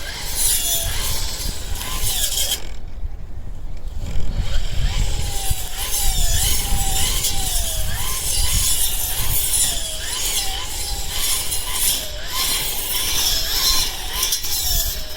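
Small engine of a brush cutter running under load while cutting weeds, its pitch dipping and recovering about once a second with each swing.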